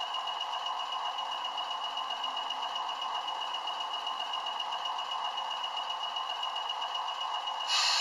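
DCC sound decoder of a model diesel locomotive playing diesel engine sound through its tiny onboard speaker, with no deep bass and a steady high tone over it. Near the end it turns suddenly louder and brighter.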